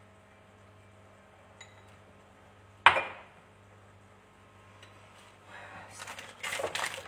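Kitchenware handled on a counter: one sharp knock with a brief ring about three seconds in, then a run of clinks and clatters of dishes and utensils near the end, over a low steady hum.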